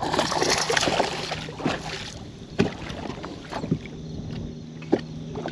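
A hooked bass splashing in the water as it is scooped up in a landing net, then three sharp knocks as the net and its handle come aboard against the boat.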